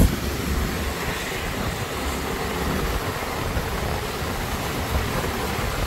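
Steady noise of a scooter moving along a rain-soaked road in heavy rain: the motor, tyres on the wet tarmac and the rain blend into one even rush.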